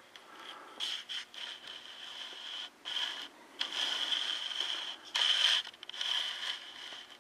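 Scraping and rubbing from a mechanism being worked by hand, in irregular bursts with a steady high squeal running through the louder ones.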